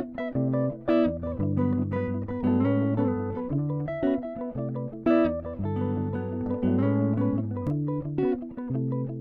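Background music: a guitar-led instrumental with a bass line, plucked notes and chords.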